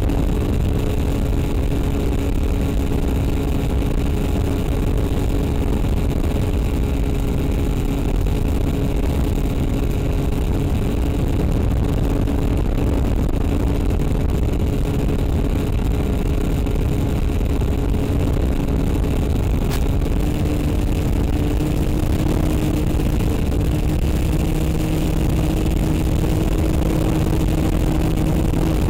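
Electric motor and propeller of an FPV model aircraft in flight, a steady whine over wind rushing across the onboard microphone. The pitch steps up a little about two-thirds of the way through, with one sharp click just before.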